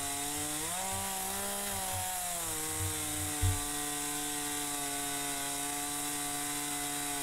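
Petrol chainsaw running in wood, its engine pitch rising about a second in and dropping back after about two seconds, then holding steady. A single thump about three and a half seconds in.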